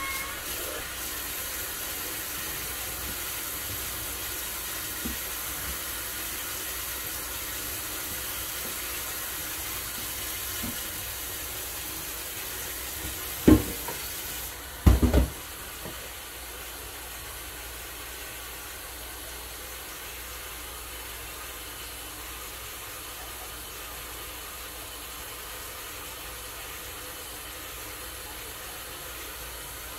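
Kitchen faucet running steadily into a pot as cut greens are rinsed, a constant hiss of water. Two sharp knocks come about halfway through, after which the running water sounds a little quieter.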